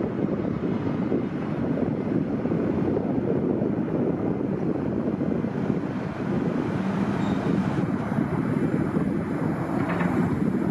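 Steady running noise of a CTA 7000-series 'L' train on the rails.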